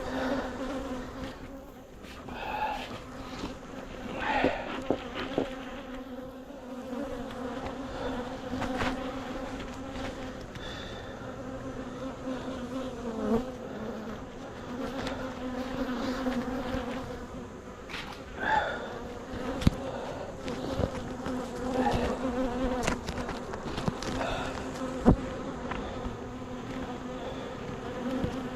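Honeybees buzzing in a steady, dense hum around an open hive. A few sharp knocks come about two-thirds of the way through.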